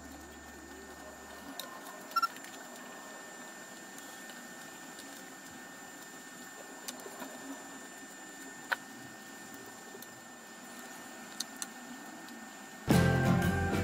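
Quiet room hiss with a few faint clicks and ticks of hands handling thread, scissors and the nailed string-art board. Near the end, background music starts, much louder.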